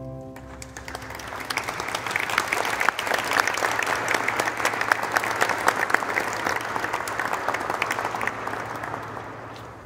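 Audience applauding after the organ's final chord dies away in the first second. The clapping builds over about two seconds, holds steady, then thins out near the end.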